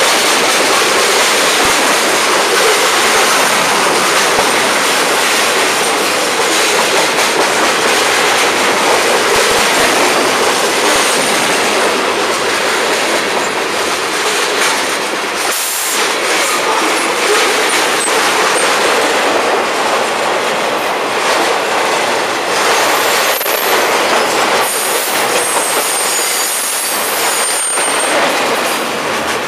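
Florida East Coast freight cars rolling past at speed: a loud, steady rush of steel wheels on rail with clickety-clack over the rail joints. Thin, high wheel squeals come in during the last few seconds.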